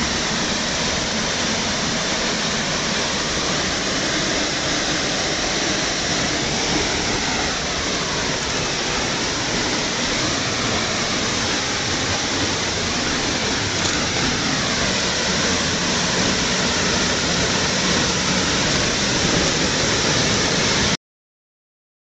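Waterfall: a steady rush of water falling into a pool, which cuts out abruptly about a second before the end.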